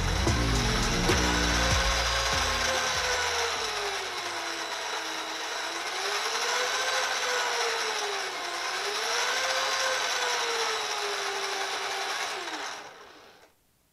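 Kids' ride-on car's electric drive motors and plastic gearboxes running on a 14.4 V drill battery through a PWM speed controller, their whine rising and falling in pitch as the controller is turned between low duty settings. The motors wind down and stop about a second before the end.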